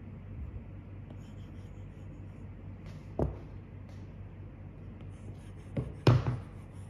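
Apple Pencil (2nd generation) tip drawing strokes on an iPad Pro screen covered with a paper-like matte film: soft scratching, not very loud, with three sharp taps of the tip, the loudest near the end.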